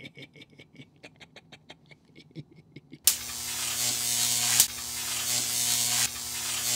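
A faint rapid clicking rattle, about seven clicks a second. About three seconds in, a loud electric static buzz with a steady low hum cuts in abruptly, an electrical glitch sound effect, with a sharp crackle partway through.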